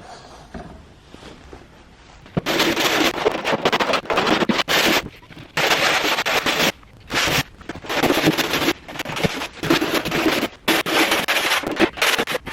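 Wire brush scouring the steel roof panel of a 1973 VW Baja Beetle to strip it for primer: a loud, harsh rasping that starts about two and a half seconds in and runs in long stretches with brief pauses.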